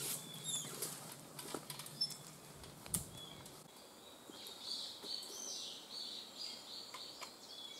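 Rustling and scattered sharp clicks as someone moves through dry brush, then from about four seconds in a bird singing a run of high, chirping phrases.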